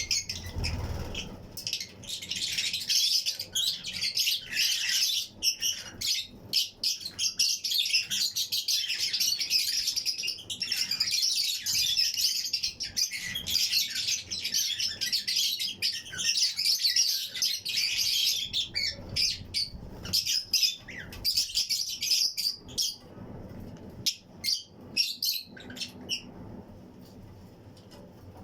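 A colony of Fischer's and lutino lovebirds chirping constantly, many high, shrill calls overlapping, with some wing flutters; the chatter thins out for the last couple of seconds.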